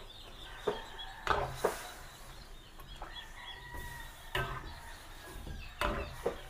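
A few scattered light knocks and clicks of cooking utensils against a pot as vegetables are added and stirred, with chickens clucking faintly in the background.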